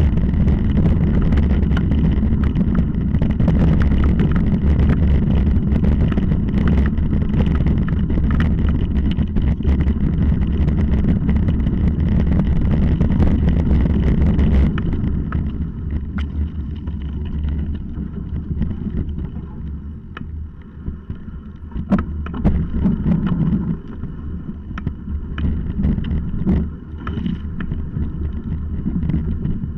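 Wind rumbling on the camera's microphone and the rattle of a mountain bike running down a rough dirt singletrack, with frequent sharp knocks as it bounces over stones. About halfway through, the rush of wind drops and the sound grows quieter.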